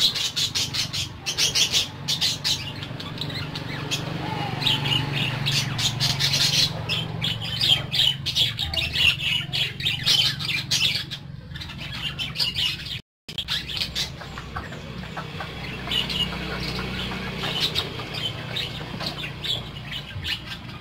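A flock of budgerigars chattering, with rapid overlapping chirps and squawks throughout. The sound cuts out completely for a moment about two-thirds of the way through.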